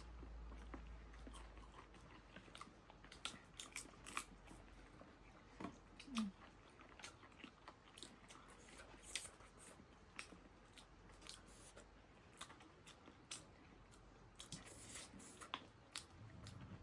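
Close-up eating sounds: faint, irregular mouth clicks and small crunches of chewing, with a brief low rising sound about six seconds in.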